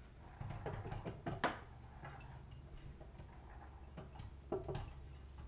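Light clicks and knocks of a Honda-clone engine's crankcase cover being worked down over its locating pins and crankshaft, the sharpest knock about a second and a half in and another near the end.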